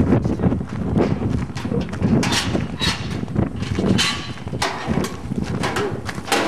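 Shuffling footsteps and irregular knocks and clicks over a rough, uneven rumble on the microphone.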